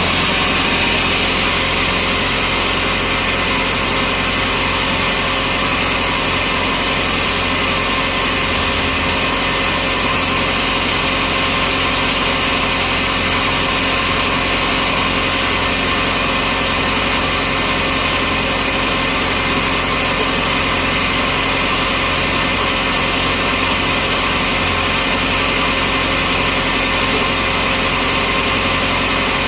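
Sawmill machinery running steadily, a loud constant engine-like drone with a few steady pitches and no change in speed or load.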